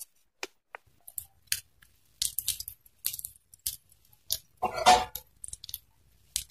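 Fork clinking irregularly against a ceramic bowl as egg mixture is beaten, with a louder clatter about five seconds in.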